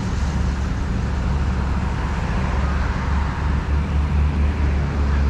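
Heavy diesel construction machinery running steadily with a low drone: the engines of an excavator and a road roller working together during a recovery tow.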